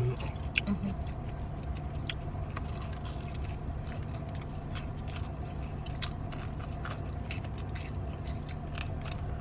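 Close-up chewing and biting of fried chicken wings, with scattered small crunches and wet mouth clicks, over a steady low hum.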